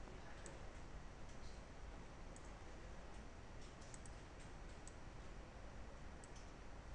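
Faint, irregular clicking at a computer, about a dozen scattered clicks over a steady background hiss and low hum.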